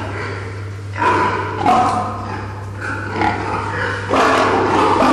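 Domestic boars making repeated short grunts and squeals, louder from about four seconds in, over a steady low hum.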